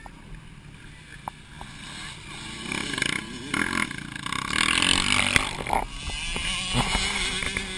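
Motocross bike engines revving as riders come through the corner and over the jump close by. The sound swells about two seconds in, is loudest around the middle and stays loud until near the end.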